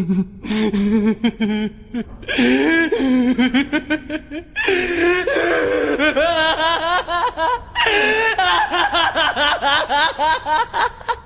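A person laughing hard in long runs of rapid, pulsing 'ha-ha' bursts. The laugh turns higher-pitched about halfway through and breaks off briefly once.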